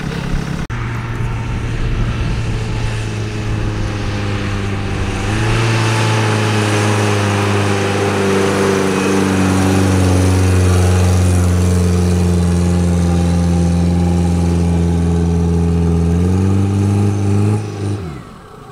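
Mitsubishi Pajero's engine under heavy load, held at steady revs as it climbs a soft sand hill. The revs step up about five seconds in and again near the end, then fall away as the climb stalls.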